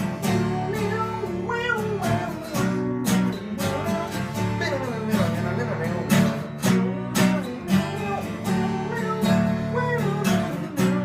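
Acoustic guitar strummed in a steady rhythm through an instrumental break between verses of a song.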